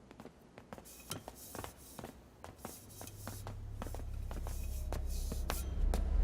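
Film sound effects: irregular light clicks and rustling, with a low rumble that comes in about halfway and swells toward the end.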